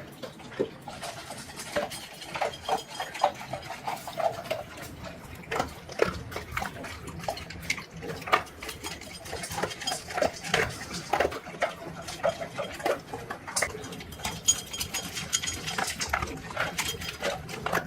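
A dog eating from a ceramic slow-feeder maze bowl: an irregular run of crunching, chewing and short clicks as the food is worked out of the maze's crevices against the ceramic.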